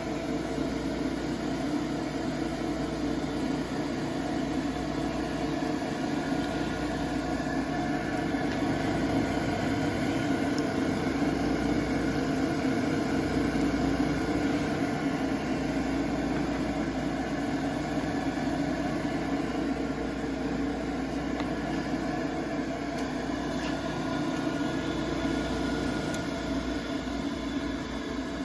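Electric motor of a Sterling drill grinder running steadily, a constant machine hum that swells slightly in the middle.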